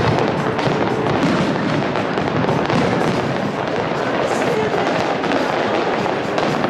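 Aerial fireworks display: a continuous crackle of many small bursts with no pause, over music playing underneath.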